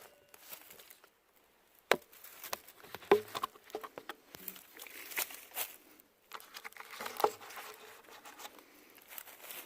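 Hands handling bike gear: irregular light clicks, taps and knocks with soft rustling, the sharpest knocks about two, three and seven seconds in.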